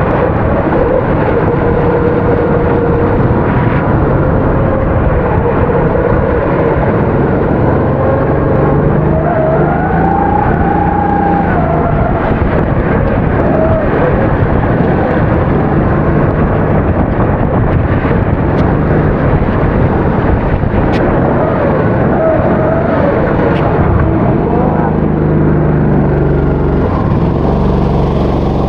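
270cc four-stroke kart engine running at race speed, its pitch rising and falling again and again as it is throttled up and backed off, over a steady hiss.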